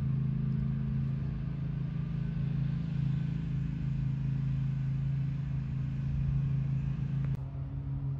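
An engine running steadily; about seven seconds in there is a sharp click and the engine's tone drops a little.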